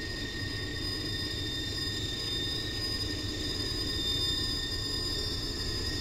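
Freight train rolling slowly around a tight curve: a steady low rumble of the cars and diesel locomotive, with steady high-pitched squeal from the wheels on the curve.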